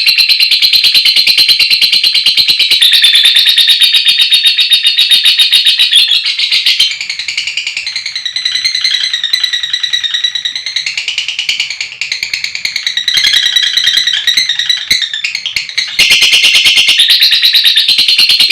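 Lovebird chattering in a long, very fast, high-pitched trill (the 'ngekek panjang' chatter). About seven seconds in it eases into slower, more varied chirps, and the fast trill returns near the end.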